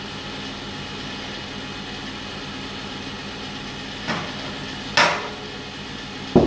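Steady background hum, with a short sound about four seconds in, a louder one about five seconds in, and a sharp click or knock near the end.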